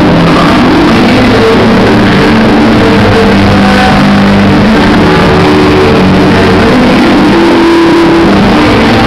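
Loud electronic dance music played over a rave sound system, with held synth notes over a dense, steady beat. The recording is pushed close to full scale throughout.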